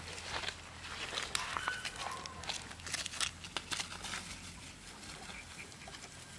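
Bangkaew puppies scampering over grass and dry leaves: a busy patter and rustle of small paws, with a few brief high squeaks about two seconds in.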